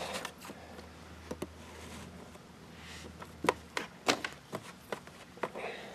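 Scattered clicks and knocks from hands handling a plastic NAS enclosure, with a cluster of sharper clicks from about three and a half seconds to five and a half seconds in.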